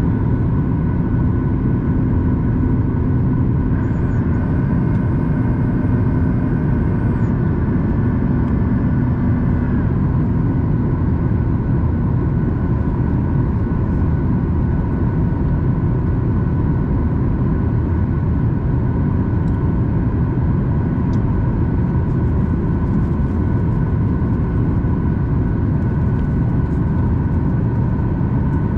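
Steady cabin noise of a Boeing 737 MAX 8 in flight, heard from a window seat: the rush of air and the CFM LEAP-1B turbofans, with a steady hum of tones running through it. A faint higher whine joins for a few seconds about four seconds in.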